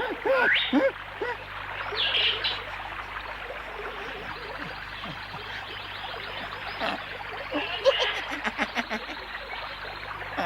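Monkeys chattering with many short squeaky calls over a steady rush of running water, with a quick run of ticking near the end.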